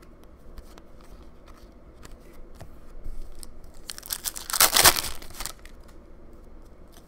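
Soft ticks of trading cards being handled. About four seconds in comes a loud crinkling, tearing burst of roughly a second and a half from the foil wrapper of a hockey card pack.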